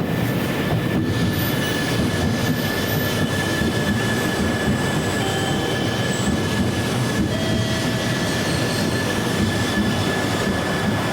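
E2 series Shinkansen train running in along the platform: a steady rumble of wheels and running gear with a thin, steady high squeal over it.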